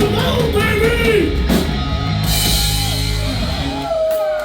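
Live hard rock band with electric guitars, bass and drums playing the last bars of a song, with gliding guitar notes over a sustained low chord. About four seconds in, the bass and drums drop out as the song ends.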